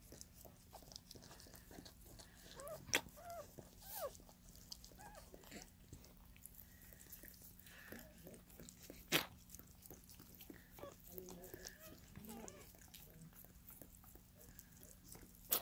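Mother corgi licking her wet newborn puppy: faint, wet licking and mouthing sounds with a few sharp clicks.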